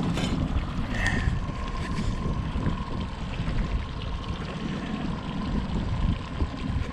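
Wind buffeting the microphone over a boat's motor running steadily while trolling, with a faint steady whine and a couple of light clicks about a second in.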